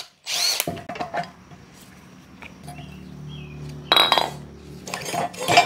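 Metal clinking and clanking of tools and suspension parts being handled, with a loud ringing metal clank about four seconds in and another near the end.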